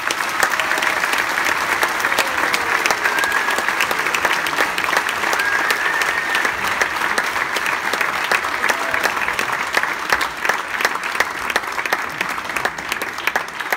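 Audience applauding steadily, the claps starting as the dance music ends and easing off slightly near the end.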